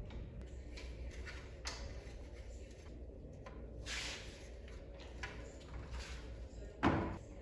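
Scattered handling noises over a low hum: a series of short rustles and clicks, with a louder thud about seven seconds in.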